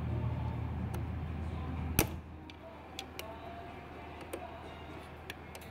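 Metal clicks of needle-nose pliers and a small lock clip being worked onto the shift-rod pin of a Suzuki 140 outboard's lower unit: one sharp click about two seconds in, then a few lighter ticks. A low steady hum stops at that sharp click.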